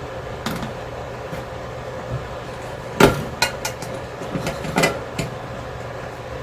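Metal clicks and knocks of tools and parts being handled while a microwave oven is taken apart: about half a dozen sharp knocks, the loudest about three seconds in, over a steady low hum.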